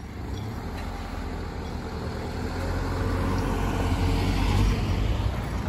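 A small truck and a car driving past close by, engine and tyre noise growing steadily louder, loudest about four to five seconds in.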